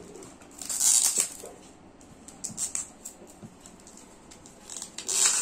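Hands opening a small cardboard retail box of earbuds: rustling and scraping of the cardboard, with a louder scratchy burst about a second in and another near the end, and light clicks between.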